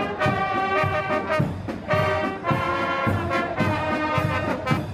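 Brass marching band playing a march: trumpets and trombones over a tuba bass line, with a steady beat.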